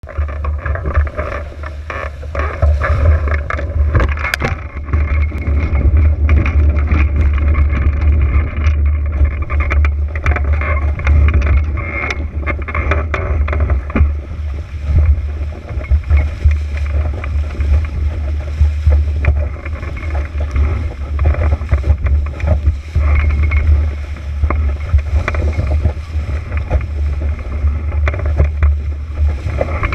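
RS300 sailing dinghy's hull running fast through short chop: water rushing and spray slapping against the hull in many sharp knocks, busiest in the first half. A heavy low rumble of wind buffets the boat-mounted camera's microphone throughout.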